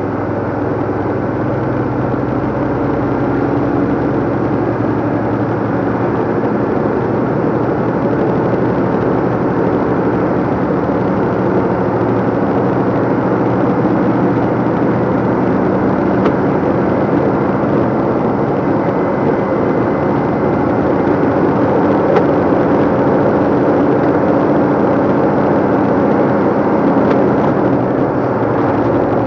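A DAF LF55 lorry's diesel engine pulling steadily at road speed, with tyre and road rumble, heard from inside the cab.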